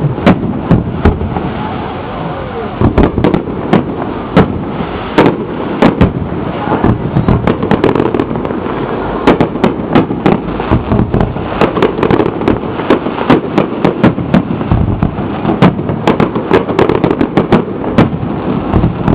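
Fireworks display: a rapid, irregular string of sharp bangs and crackles, several a second, over a continuous rumbling haze from the barrage.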